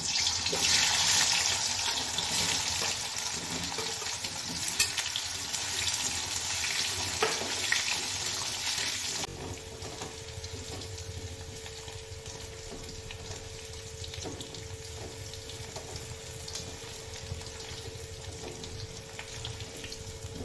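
Boiled baby potatoes sizzling in hot oil in a brass kadhai and being stirred with a spatula. The sizzle is loud for the first nine seconds, then drops suddenly to a quieter, even frying hiss with a faint steady tone under it.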